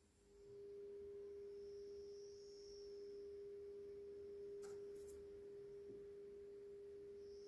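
Pioneer SX-1250 receiver reproducing the AM test signal from an RF signal generator as a steady low-pitched tone through its speaker: the receiver is tuned to the 1400 kHz test signal during AM tuner alignment. There are a couple of faint clicks about halfway through.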